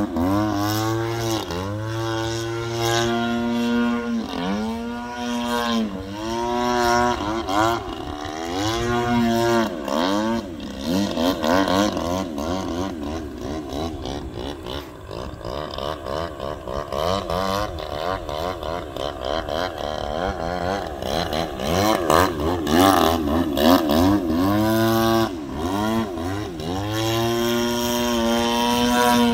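GP76 two-stroke gas engine of a large RC aerobatic plane spinning a 24x9 propeller, its pitch dipping and climbing back every second or two as the throttle is chopped and opened through manoeuvres. In the middle it holds higher power for about ten seconds with a wavering pitch, then the dips return near the end.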